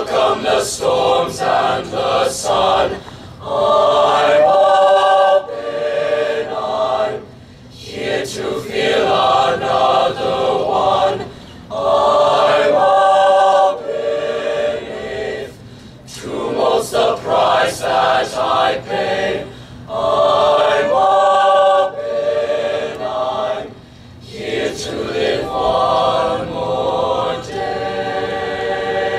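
Mixed high school choir singing a cappella, in sung phrases of a few seconds broken by short pauses for breath.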